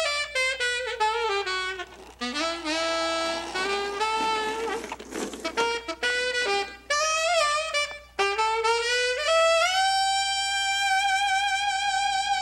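Solo saxophone playing a jazzy line in short phrases, sliding and bending between notes with brief pauses between them, then a long held note with vibrato from about ten seconds in.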